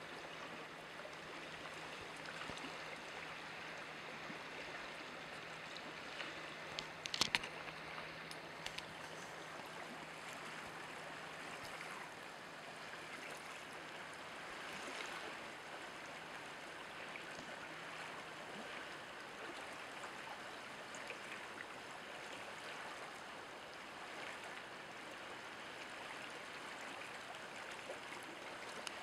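Steady rushing noise like running stream water, with a brief cluster of clicks about seven seconds in. A faint low hum stops a little past the middle.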